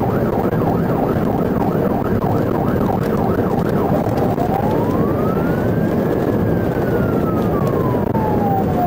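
Police siren in pursuit: a fast yelp for the first few seconds, then a slow wail that rises and falls once, over steady engine and road noise.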